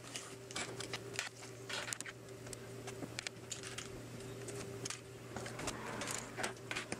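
Small 3D-printed plastic tourbillon cage parts handled and pressed together by fingers: a scatter of light clicks and taps over a faint steady hum.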